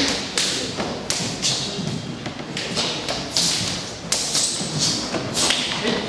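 Open hands slapping and striking bare backs, shoulders and arms as pairs practise Uechi-ryu body-conditioning strikes. The sharp slaps come irregularly, about two a second, from different pairs, some overlapping.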